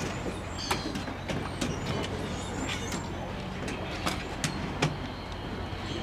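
Wading-bird nesting colony: scattered short, high bird chirps and several sharp clicks over a steady low hum.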